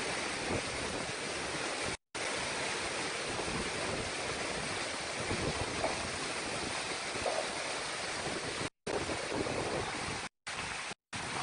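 Steady rushing noise of cyclone wind and heavy rain with rough sea, broken several times by a brief dead-silent gap where clips are cut together.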